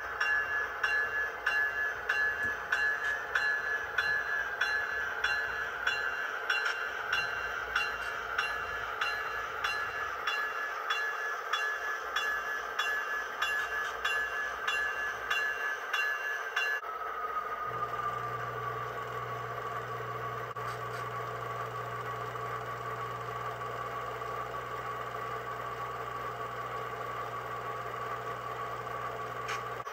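A model diesel locomotive's sound decoder: the engine runs with a bell ringing about twice a second. About seventeen seconds in the bell stops and the engine settles into a steady lower note, joined by a low steady hum.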